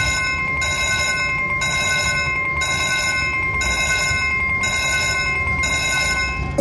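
VGT video slot machine playing its win count-up sound as the credits tally after a bonus feature: an electronic ringing of bells, repeating about once a second over two held tones, that stops suddenly at the end.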